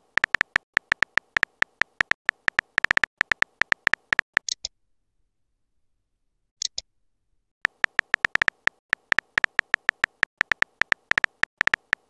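Simulated phone keyboard typing: rapid keystroke clicks, several a second, in two runs with a pause between them. Two short high electronic blips fall near the middle.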